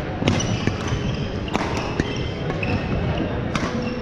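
Badminton rackets striking shuttlecocks in a rally, a handful of sharp cracks with hall echo, with short squeaks of shoes on the hardwood court floor between them.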